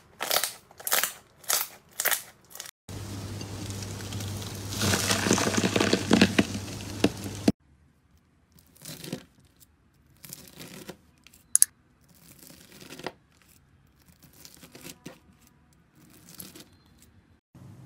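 Hands squeezing and patting a ball of clear slime, about two sharp sounds a second. After that, a few seconds of steady noise over a low hum, loudest about halfway through. Then a long blade slicing through a blob of blue crunchy bead-filled slime, with a short crunch at each cut about every one and a half seconds and one sharp click among them.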